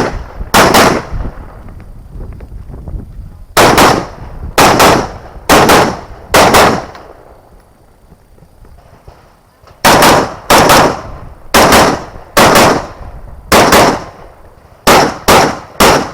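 About a dozen rifle shots fired in strings: a few spaced shots, a pause of about three seconds, then a faster run of shots near the end.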